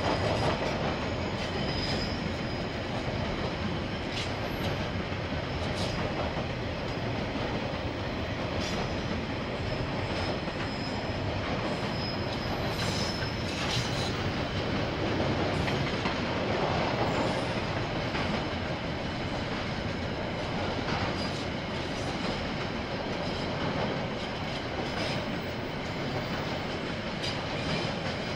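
KiwiRail train's wagons rolling steadily past, with sharp wheel clicks over the rail joints and a faint high squeal from the wheels.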